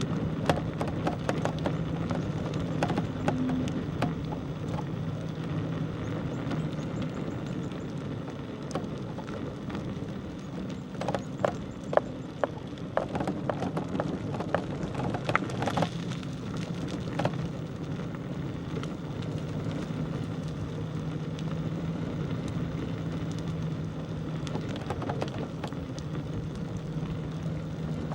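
A bicycle rolling over a rough village road: steady tyre and road noise with a low hum underneath, and scattered clicks and rattles that come thickest a little before halfway through.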